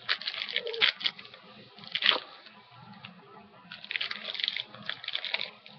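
Plastic snack wrapper being handled and torn open, crinkling in irregular clicks and crackles with short pauses.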